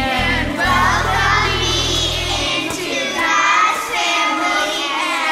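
Children's voices singing over a music track, with a low held bass note that drops out about halfway through.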